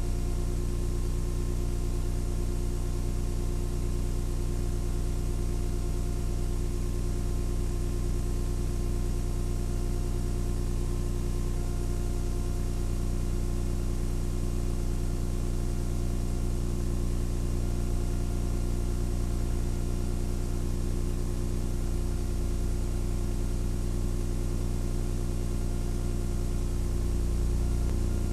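Steady machine hum: several steady low tones over a constant hiss, the lowest tone swelling slightly near the end.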